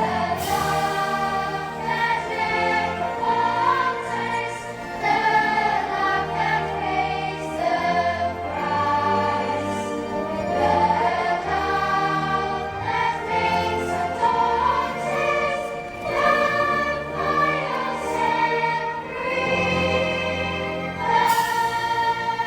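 A choir singing a slow hymn with a massed military band accompanying, in long sustained phrases.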